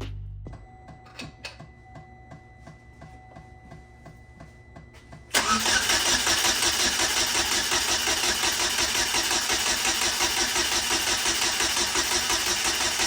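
Car engine: faint running with light regular ticks, then about five seconds in a much louder, harsh, evenly pulsing engine sound comes in suddenly and runs steadily for about eight seconds before cutting off near the end.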